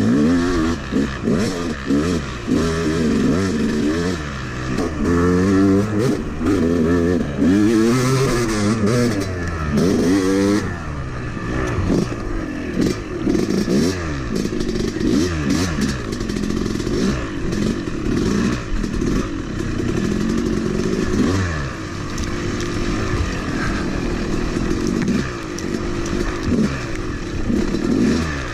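Freshly rebuilt Yamaha YZ250 two-stroke single-cylinder engine being ridden hard, revving up and down over and over as the throttle is worked along the trail.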